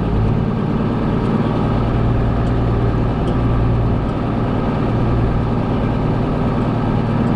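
A large engine running steadily at an even speed, with a constant low hum.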